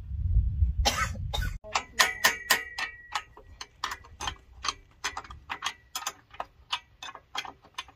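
Steel open-end spanner clinking on the nut and bolt of a wood lathe's tool-rest clamp as the nut is turned: a long irregular run of sharp metal-on-metal clicks with a short ring, about two or three a second. A low rumble comes before them in the first second and a half.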